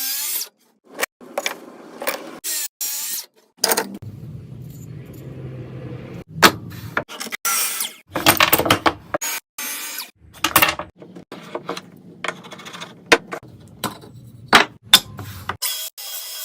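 A rapid series of cut-together woodworking sounds: power tools running on wood in short stretches, broken by sharp knocks and clacks.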